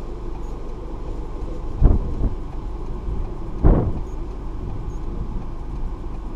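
A car driving, heard from inside: a steady low road rumble, with two dull thumps, one about two seconds in and one near the middle.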